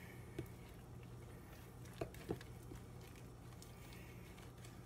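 A few faint, soft knocks and clicks from kitchen items being handled, over a steady low hum.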